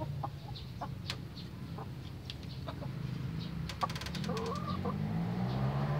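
Several brown hens clucking with short, separate calls, plus a few sharp clicks, over a steady low hum.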